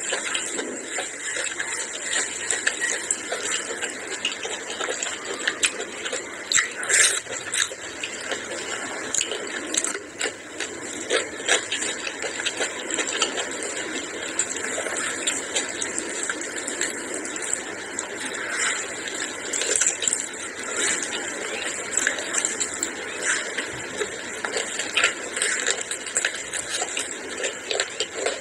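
Close-miked eating sounds: wet chewing and mouth sounds, mixed with fingers squishing rice in curry sauce. The small clicks and crackles come thick and fast throughout, with no pauses.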